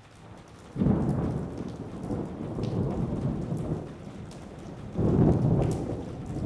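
Thunderstorm: steady rain with two long rolls of thunder, the first about a second in and the second about five seconds in.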